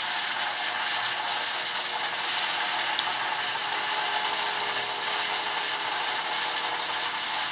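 Steady mechanical background noise: a continuous hiss with a faint hum, and a single light click about three seconds in.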